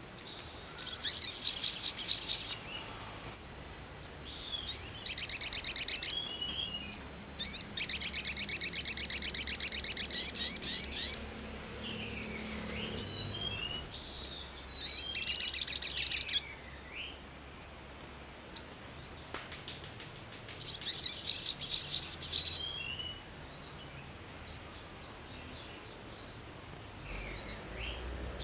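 Male olive-backed sunbird singing: repeated bursts of high, very fast trilling song, each phrase lasting one to three seconds, the longest nearly three, with short chips and sharp calls between phrases.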